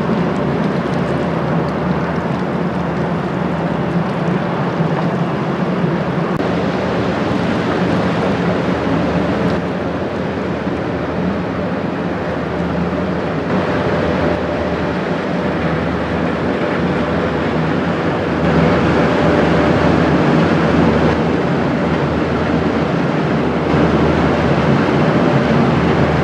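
Inland motor tanker's diesel engine droning steadily under a loud rush of water and wind noise, a little louder about 18 seconds in.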